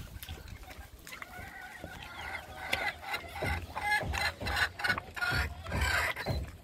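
Domestic chickens clucking repeatedly, the calls coming thicker from about halfway through, over the wet chewing and gulping of a dog eating meat right at the microphone.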